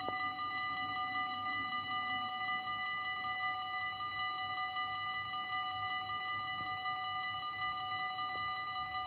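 Dutch level-crossing warning bells (EBA electronic crossing bells) ringing continuously with a steady bright tone while the barriers are down, signalling that a train is approaching.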